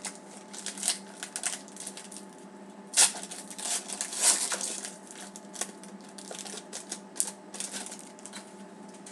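Foil trading-card pack being torn open and crinkled by hand, in irregular crackling bursts that are loudest about three seconds and about four seconds in.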